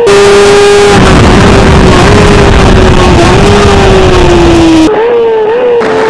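Racing motorcycle engine running at high revs on track, heard onboard under heavy wind noise; its pitch sinks slowly over several seconds, then steps quickly up and down near the end.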